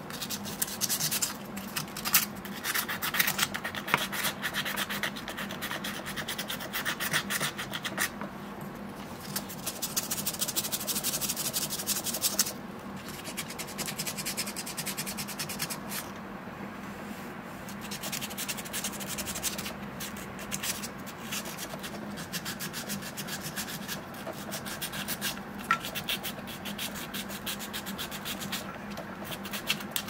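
Brass key blank in an impressioning handle being rubbed back and forth on fine sandpaper, buffing the blade of a key being impressioned. The rubbing comes in runs of quick strokes broken by short pauses.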